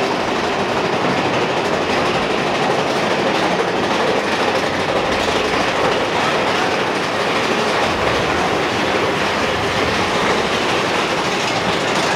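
Mine-train roller coaster running along its track: a steady, loud rattling and clattering of the cars and wheels, with no break.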